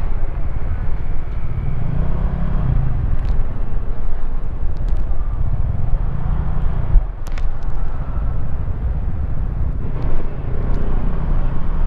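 Motorcycle engine running at low speed in stop-and-go traffic, picked up by a camera mounted on the bike itself: a steady low rumble that swells and eases a few times, with a few light clicks about seven seconds in.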